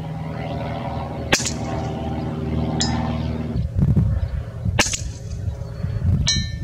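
Two sharp shots from an Edgun Leshiy 2 PCP air rifle in .25 caliber, about three and a half seconds apart, with a smaller click between them and a short metallic clink near the end. A steady low hum runs under the first half.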